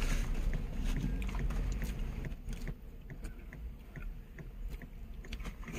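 Someone chewing food, with small scattered mouth clicks. Under it is a low rumble that drops away about two and a half seconds in.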